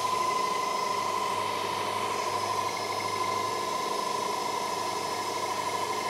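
ROIDMI X30 Pro cordless stick vacuum cleaner running steadily: a constant high motor whine over an even hiss of air.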